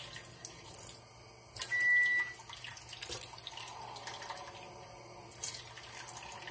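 Kitchen tap running to draw hot water, with a single steady electronic beep about two seconds in.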